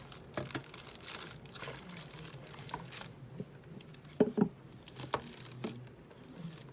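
Unboxing handling noise: packaging crinkling and rustling, with several sharp knocks and clicks, the loudest a pair about four seconds in and another about five seconds in.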